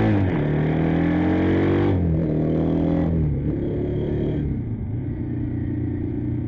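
Kawasaki KLR650's single-cylinder four-stroke engine pulling through the gears: its note climbs, drops at gear changes about two and three seconds in, then settles to a steadier, lower note. Wind rushes past the helmet-mounted microphone.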